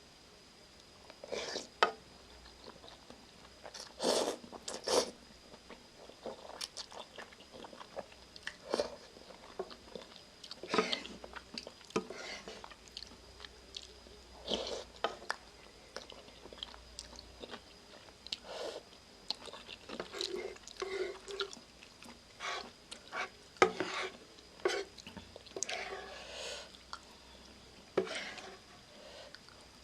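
Close-miked eating of Shin Ramyun noodle soup with shrimp and egg: irregular wet chewing, biting and mouth smacks, a few sharper clicks among them.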